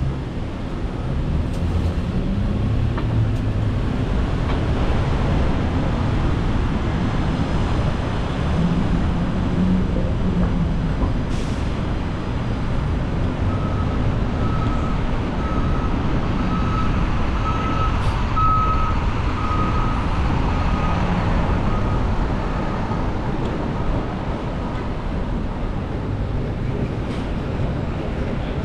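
Manhattan street traffic heard while driving: a steady, loud rumble of engines and tyres on the road. From about halfway through, a high repeated beeping sounds for around ten seconds, with a few sharp clicks scattered through.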